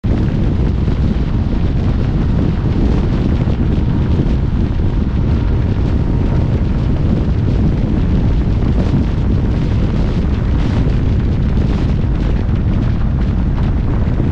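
Loud, steady wind buffeting the microphone: a dense low rumble with no break.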